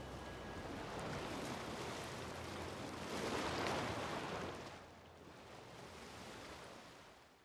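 Rushing noise of surf washing in, swelling to its loudest about three and a half seconds in, then fading out.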